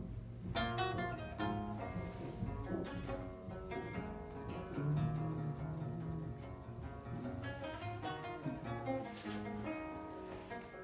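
Live band playing an instrumental passage: plucked guitar notes picked out one after another over low bass notes.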